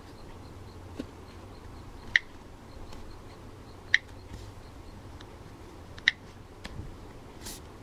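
Short, sharp, pitched clicks like an iPhone keypad's tap sounds: three loud ones a couple of seconds apart, with a few fainter ticks between them, over a steady faint hiss.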